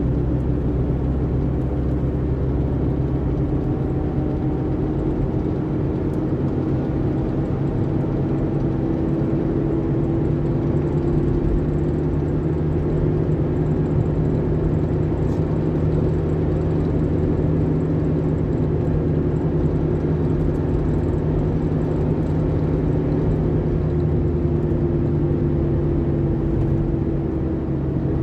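Car cruising on an asphalt road, heard from inside the cabin: steady engine hum and road rumble, the engine note drifting slightly up and down with speed.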